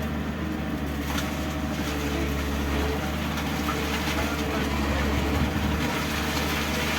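Backhoe's diesel engine running steadily, a low drone with faint knocks and clatter over it.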